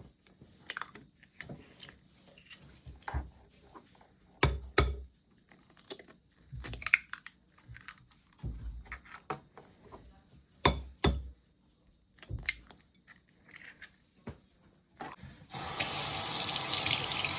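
Scattered knocks and clicks of kitchen work, likely eggs being cracked and dropped into the mixing bowl. Near the end a kitchen tap is turned on and water runs steadily into the sink, which is the loudest sound.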